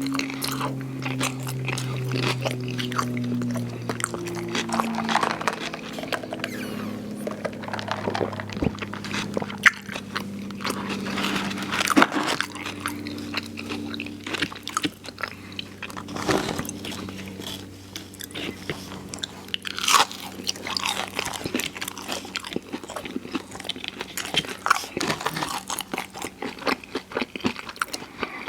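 Close-miked chewing and biting of fried fast food: repeated crunchy bites and wet mouth sounds, irregular throughout, with a few louder crunches.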